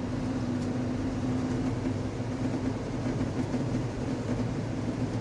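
A steady, pitched hum from the engine bay of a running 2011 Hyundai Sonata 2.0 Turbo: the strange intermittent noise that comes on with the A/C and seems to come from the passenger side of the engine. The owner does not know its cause.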